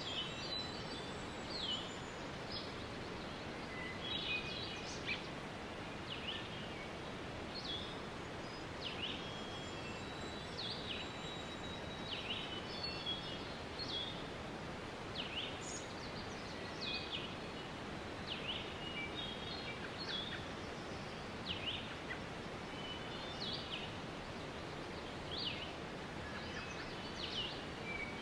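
Steady rush of a waterfall with many small birds chirping over it: short high chirps and quick downward-sweeping notes, about one or two a second.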